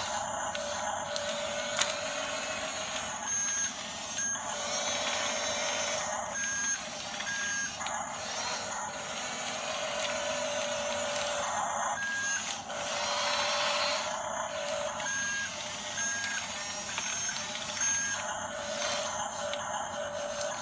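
Remote-control model bulldozer running: a steady whirring and grinding from its small electric motors and gears, with thin electronic tones that switch on and off every second or so.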